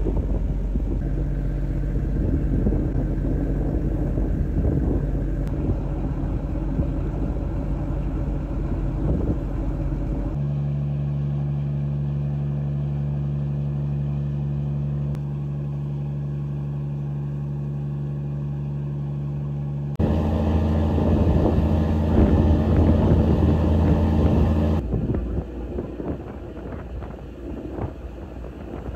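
Ferry engine running with a steady low drone and hum, heard from on board the boat. The sound changes abruptly several times, shifting between a deeper rumble and a smoother hum.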